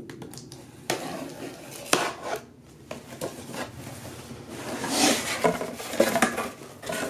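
Cardboard box being handled and its lid opened: scattered taps and knocks, with a swell of rustling about five seconds in.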